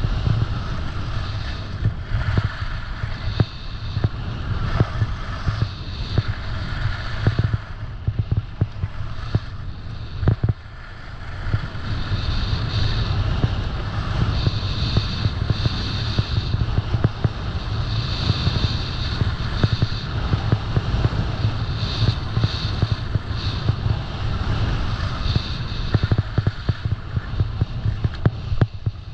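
Skis sliding and scraping over groomed, hard-packed snow on a downhill run, with frequent clicks and knocks and an edge-scraping hiss that swells and fades every couple of seconds. Wind rumbles on the microphone underneath.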